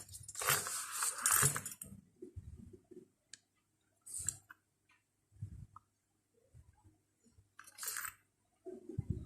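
Scattered handling noises from drawing tools at a work desk: a loud rustle in the first two seconds, then light knocks and clinks, with two short sharp rustles about four and eight seconds in.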